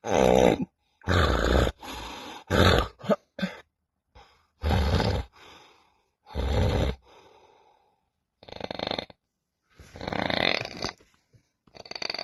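A person snoring: a run of loud, rasping snores about a second or two apart, coming thick in the first few seconds and sparser and quieter after that.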